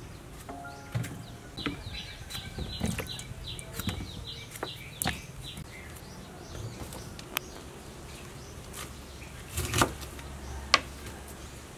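Scattered knife clicks and light knocks as small eggplants are cut and trimmed by hand, with a bird giving a quick run of high chirps about two seconds in. The two sharpest knocks come near the end.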